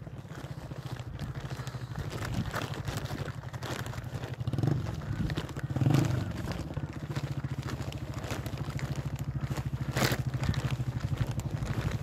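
Motorcycle engine running at low revs, its exhaust pulsing rapidly and evenly, with scattered rattles and a sharp knock about ten seconds in.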